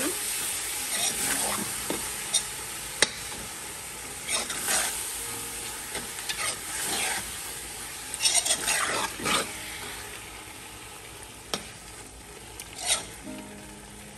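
A metal spoon stirring and scraping a thick mass of cooked-down waterleaf and meat around a large metal cooking pot, with scattered clicks of spoon on pot over a steady sizzle from the hot pot. The strokes come less often in the second half.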